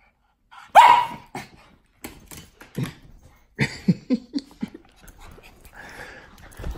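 Two small dogs play-fighting: one loud bark about a second in, then a string of shorter barks and yips with scuffling in the bedding as they wrestle.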